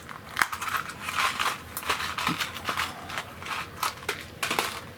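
Small screws being handled and sorted by hand, with irregular clicks and crinkling throughout.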